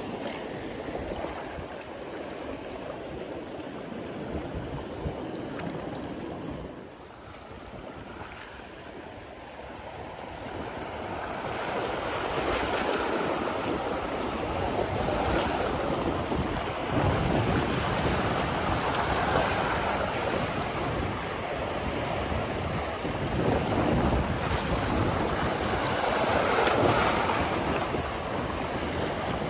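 Sea surf washing on a rocky shore, with wind buffeting the microphone. The surf eases off briefly and then builds louder from about ten seconds in, surging in waves.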